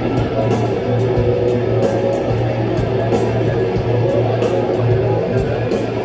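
Live rock band playing: strummed electric guitars over a steady bass line, with cymbal hits about every one to one and a half seconds.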